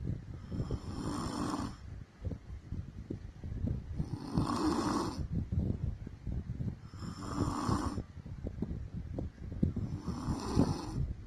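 A woman snoring in her sleep: four snores at an even pace, about one every three seconds.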